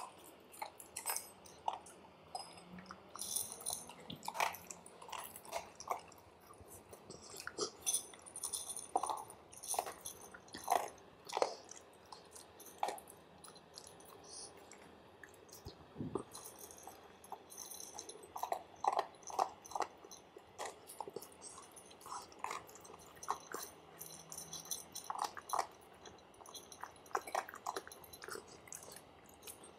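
A golden retriever puppy and a kitten crunching dry kibble from a shared bowl: irregular crisp crunches in clusters of several a second, with short pauses between mouthfuls.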